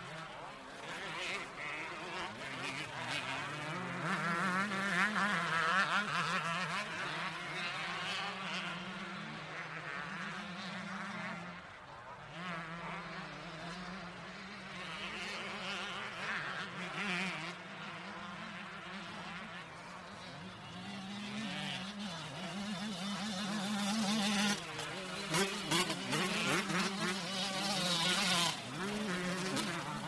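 Motocross dirt bike engines at a race, revving up and down in a high buzz that keeps rising and falling in pitch, with the loudest revving near the end.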